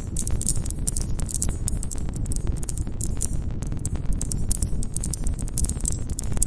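Wood campfire crackling and popping in rapid irregular snaps over a steady low rumble of the flames, with crickets chirping high above.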